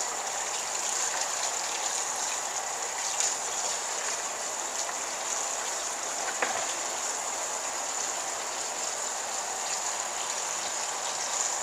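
Cold tap water running steadily into a colander of cooked corn kernels while hands rub and stir the wet kernels, with an occasional faint click. This is the rinse after nixtamalization, washing off the wood-ash lye solution and the loosened pericarp skins.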